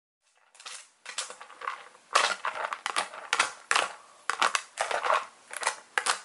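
A toy poodle scratching and pawing at a clear plastic treat container, trying to get at the treats: a rapid, irregular run of rough scratching strokes that starts about half a second in.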